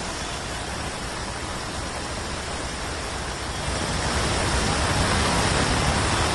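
Heavy rain on a flooded street: a steady, even rushing hiss. About four seconds in, a low rumble of vehicles driving through the water grows louder.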